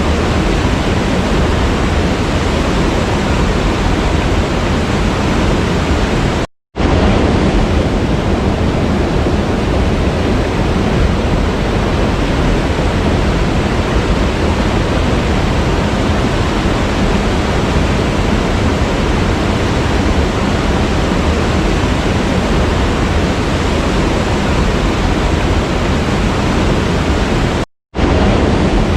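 Steady, loud rushing of a waterfall, an even wash of falling water with no other sounds. It cuts out to silence for a split second twice, about six and a half seconds in and near the end.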